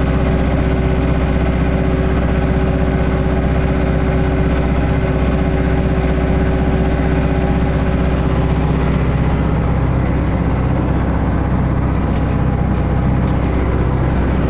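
Landini Blizzard 95 tractor engine running at a steady, even speed.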